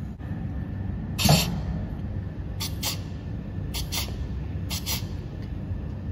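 Horizontal pneumatic piston filling machine's air valves venting: one loud hiss about a second in, then three pairs of short, sharp air puffs about a second apart, over a steady low hum.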